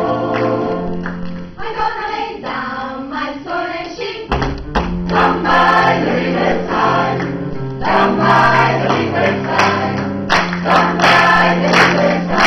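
A choir singing a lively song, with held low notes under the melody. About two-thirds of the way through, hand claps come in and keep the beat.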